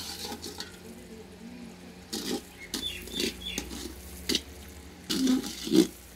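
A long slotted metal spoon stirring sugar and water in a metal pot, scraping and knocking against the pot about once a second, with the liquid sloshing; the sugar is being dissolved into syrup.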